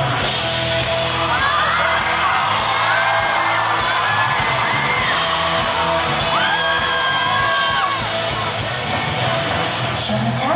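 Loud live pop music from a concert stage's band and sound system: a song's intro that starts with a sudden hit, with voices whooping and singing over it.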